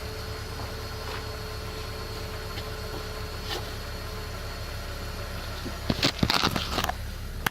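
BMW E46 engine idling steadily, with a loud cluster of knocks and rattles about six seconds in and a sharp click at the very end.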